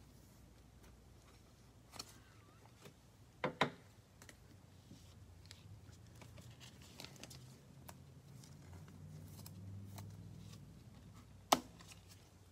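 Trading cards being handled and flipped through, with soft rustling and a few sharp taps: a quick double tap about three and a half seconds in is the loudest, and another single tap comes near the end.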